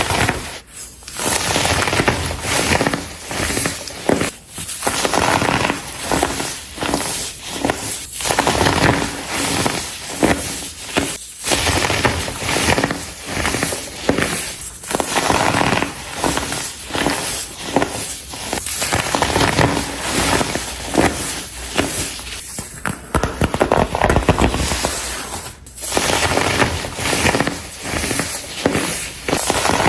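Baked baking soda blocks being crushed by hand: dense, crunchy, squeaky crackling in repeated bursts a few seconds long, with brief pauses between them.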